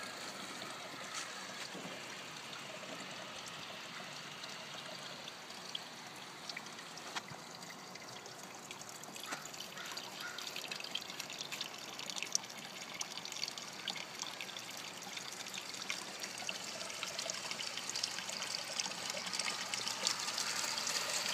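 Garden pond water feature trickling steadily, with scattered small clicks, growing gradually louder toward the end.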